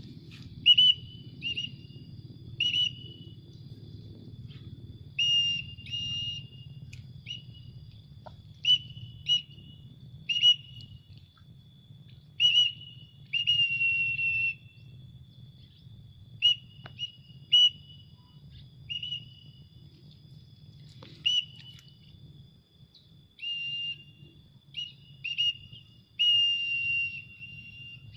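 Short, sharp whistles, some held about a second, repeated at irregular spacing about twenty times: a keeper whistling to call a trained pallow bird in flight back to the hand. A faint steady insect drone runs behind.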